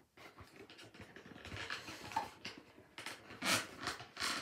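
Packaging being handled and wrestled with, rustling and scraping as a boxed toy is pulled at. There are two louder short noisy bursts, one about three and a half seconds in and one near the end.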